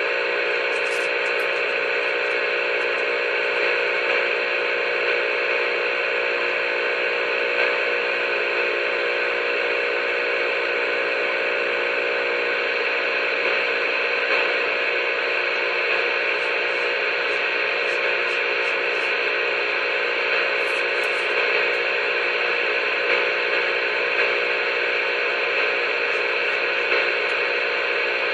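A steady, unchanging drone of several held tones over hiss, heard through a CB radio speaker while someone on the channel holds their transmit key down and plays a noise over the air.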